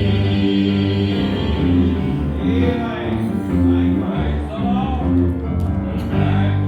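Gospel singing with instrumental accompaniment, steady held low notes beneath the voices.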